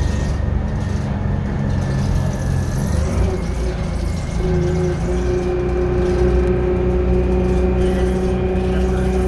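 Detroit Diesel 6V71N two-stroke diesel engine of a 1982 GM New Look 'Fishbowl' bus running under way, heard from inside the cabin. About four seconds in the engine note shifts and a steady whine joins it.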